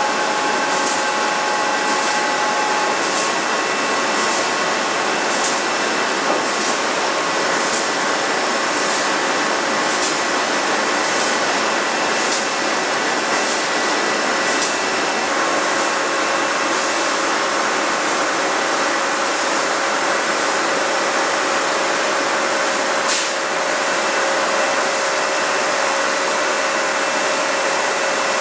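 Steady, loud machinery noise of a steel rolling mill running with a hot bar on the roller tables and stands, carrying a few faint steady tones. Light ticks come a little over a second apart through the first half, then stop about halfway through.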